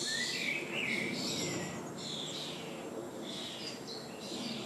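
Wild songbirds singing: a string of short, high chirps and warbling trills, one after another.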